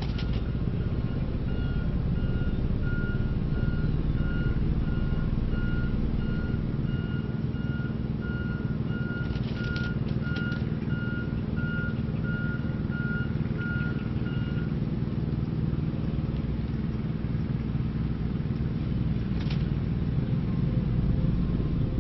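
A vehicle's reversing alarm beeping steadily over a low engine rumble; the beeping stops about 15 seconds in. A few short clicks sound now and then.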